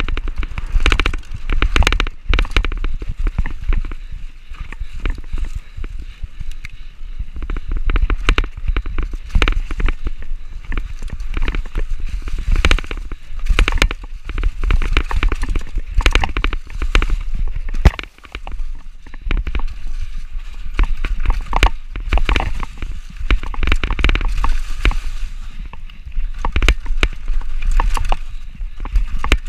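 Mountain bike descending a dry, rough dirt trail: tyres on loose dirt and leaves, with frequent irregular rattles and knocks as the bike goes over rocks and roots, over a steady low rumble of wind buffeting the camera's microphone.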